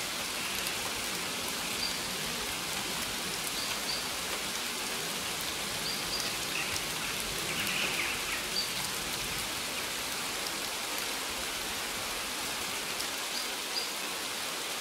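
Steady rush of a waterfall, with faint short bird chirps every couple of seconds.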